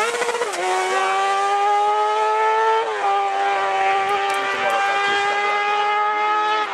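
Car-cross buggy's engine at high revs under throttle: the note climbs slowly and drops with upshifts about half a second and about three seconds in, then holds steady.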